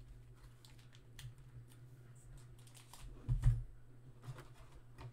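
Scattered light clicks and taps of equipment being handled, with one louder thump about three and a half seconds in, over a steady low hum.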